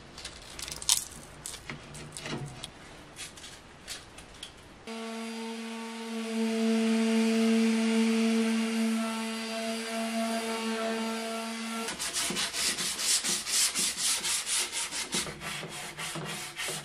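An electric palm sander runs for about seven seconds on wood, a steady motor hum over a sanding hiss. It starts about five seconds in after some scattered scratching and stops abruptly. Then hand sanding with sandpaper follows, quick back-and-forth rasping strokes at about three a second.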